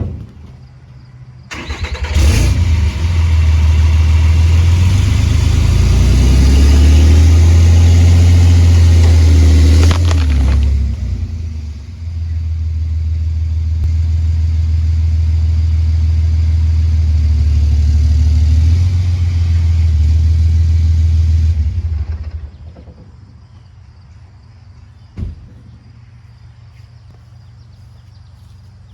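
Diesel pickup truck with an aftermarket exhaust, its engine working hard under load as it pulls on a tow strap to drag out a tree stump. It revs up about two seconds in and runs loud for about eight seconds, eases off briefly, then pulls loud again for about ten seconds before dropping back to idle. There is one sharp knock near the end.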